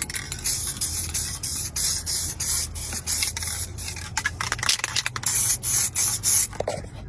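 SEM aerosol dye can spraying in short, quick hissing spurts, laying a coat of colour onto a repaired leather console lid.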